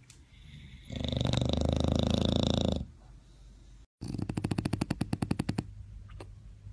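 Bulldogs snoring: one long, loud snore lasting about two seconds, then after a brief break a rapid fluttering snore of about a dozen pulses a second.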